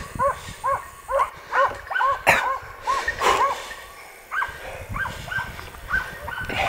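Hunting dogs barking repeatedly, short rising-and-falling yelps about two a second in bouts, with a short pause around the middle. A single sharp click cuts in about two seconds in.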